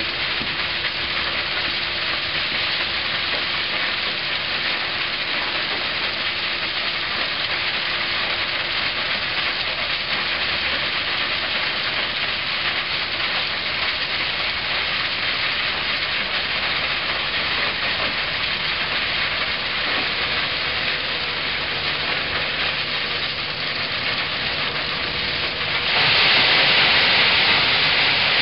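Terex Finlay 694 mobile screening plant running, with a steady rushing hiss of sand and gravel pouring through its screen and off its discharge conveyors. Near the end the sound turns louder and hissier as a wheel loader tips a bucket of gravel into the hopper.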